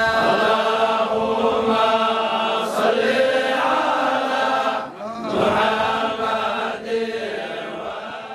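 A group of men chanting a devotional Arabic song together, a salawat in praise of the Prophet. The chant dips briefly about five seconds in and fades out near the end.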